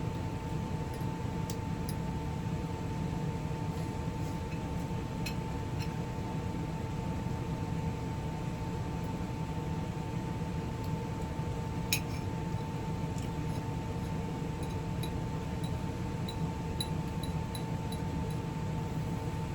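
Steady mechanical hum with a constant tone, under scattered light clinks of cutlery on dishes during a meal, the sharpest clink about twelve seconds in.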